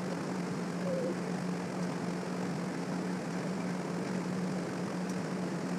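A motor running steadily: a constant low hum with an even hiss over it.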